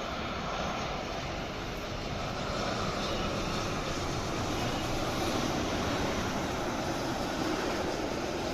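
Jet engines of a Boeing 787 Dreamliner airliner on its landing approach. The engine noise grows louder from about two seconds in, is loudest midway, and eases slightly near the end.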